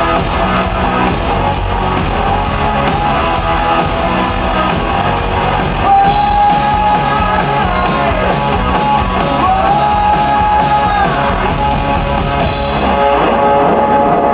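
Rock band playing live: guitars, drums and a singer, who holds long sung notes partway through.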